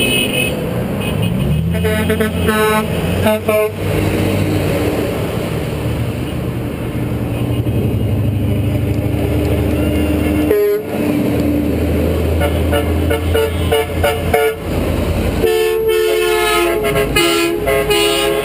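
Trucks in a convoy passing close by, their engines droning, with horns sounded in repeated short toots: several a couple of seconds in, more about two-thirds through, and a louder run of blasts near the end.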